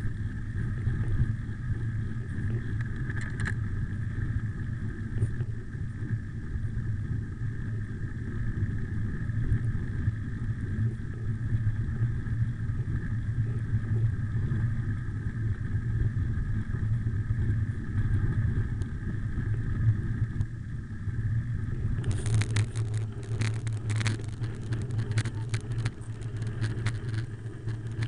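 Bicycle rolling fast downhill on a gravel track: a steady low rumble of tyres and wind. About 22 seconds in, a dense, irregular crackle and rattle of gravel and bike parts joins it.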